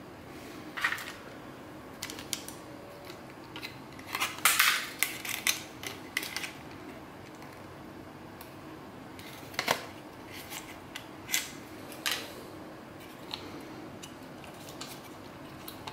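Light clicks and clatter of stripped stereo circuit boards and parts being handled, busiest about four to six and a half seconds in, then a few single clicks.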